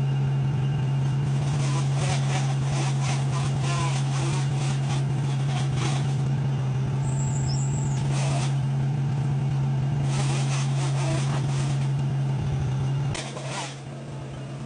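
Heavy machinery engine running steadily under load, with intermittent clattering and scraping bursts. Near the end the engine drops off sharply to a much lower level.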